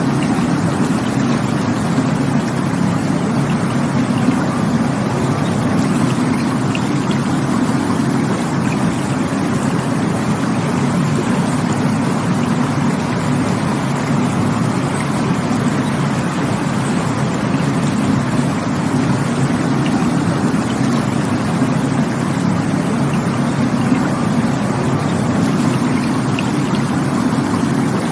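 Rushing water of a stream or waterfall: a loud, steady, deep roar with no breaks or changes.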